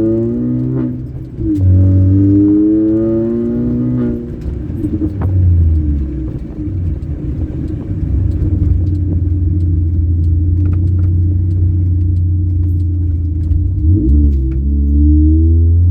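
Sprintex-supercharged four-cylinder engine of a modified 2004 Mini Cooper S pulling through the gears. Its pitch rises twice, dipping briefly at each shift, then holds a steady drone at cruise until another shift and pull begins near the end.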